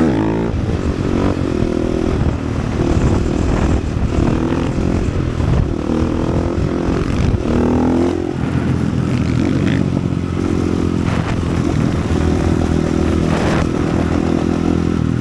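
450cc supermoto's single-cylinder engine under way, revving up and shifting through gears so that its pitch climbs and drops several times.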